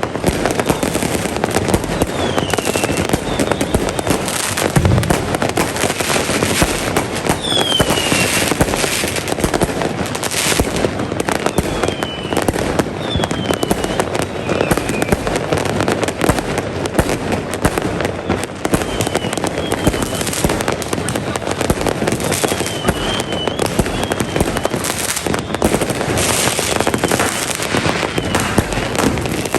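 Fireworks going off without a break: a dense crackle of bangs and pops, with several short falling whistles scattered through it.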